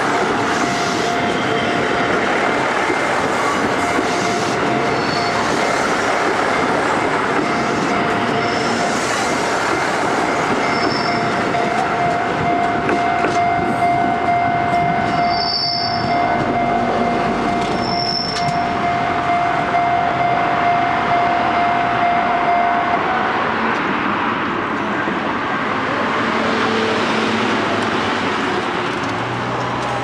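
KiHa 75 diesel railcar rolling slowly past at close range and pulling away, wheels running on the rails. A steady high tone sounds until about 23 seconds in, and a few short high squeals come and go.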